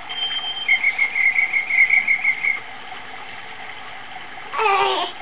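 Electronic sound effects from a rainforest-themed baby seat toy: a short high beep, then a rapid chirping trill of about six pulses a second lasting about two seconds. Near the end comes a brief falling, tuneful call.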